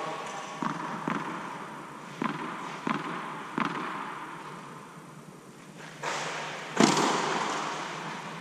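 Tennis ball bounced on a clay court five times, then a loud racket strike on the ball near the end, the knocks echoing in a large air-dome hall.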